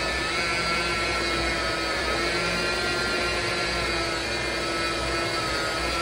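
Handheld electric bucket washing machine with a 350-watt motor running steadily with a whine, its spinning head churning soapy water and clothes in a bucket.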